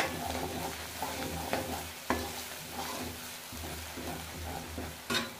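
A metal ladle stirs and scrapes chopped onions and spices frying in hot oil in a metal pan. There is a steady sizzle, with several sharp clinks as the ladle knocks against the pan.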